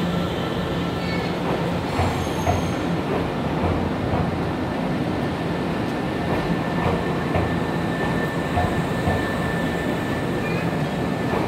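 Nankai 7100-series electric train rolling along the platform as it pulls into the station: a steady rumble of wheels and running gear, with a thin, high steady tone above it and faint clicks from the wheels.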